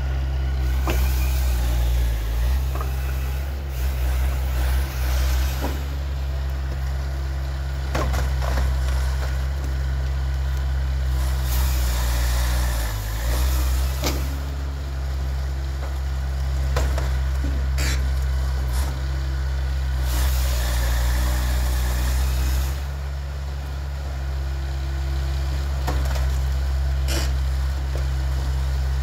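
Dyna SC-16 firewood processor running, its engine holding a steady low drone. Now and then comes a few seconds of higher rushing noise, and there are a handful of sharp knocks.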